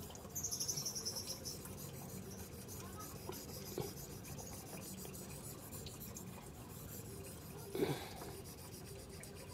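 Faint scraping of a D2 steel knife blade being stroked across a wet Suehiro 3000-grit whetstone. A short, fast, high trill comes about half a second in, and a brief voice sound near the end.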